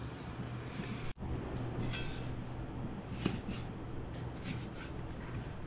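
Faint, scattered clicks and rustles of food preparation at a galley counter, over a steady low hum.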